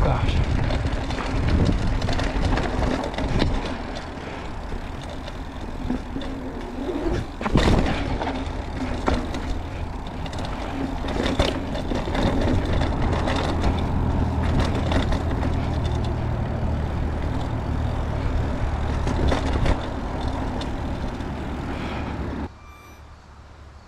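Mountain bike descending a steep, rough dirt trail: a steady low rumble of tyres over dirt and rock, with the bike rattling and knocking over bumps. The noise drops away suddenly near the end.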